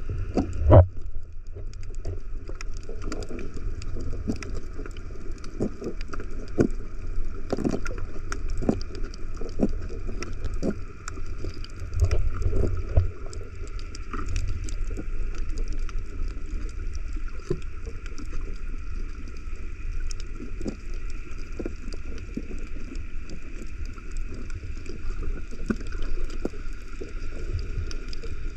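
Underwater sound picked up by a camera submerged on a coral reef: a muffled, steady low water rumble with scattered sharp clicks and knocks, the strongest about a second in, over a faint steady hum.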